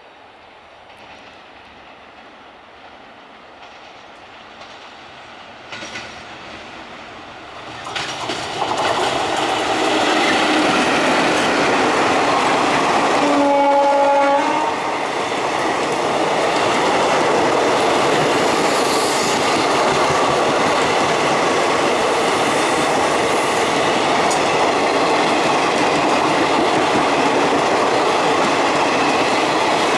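An express train hauled by a WAP-4E electric locomotive approaches at speed, growing louder over the first ten seconds. A single horn blast of about a second and a half sounds near the middle. Then the long rake of passenger coaches rushes past with a steady rumble and clatter of wheels on rails.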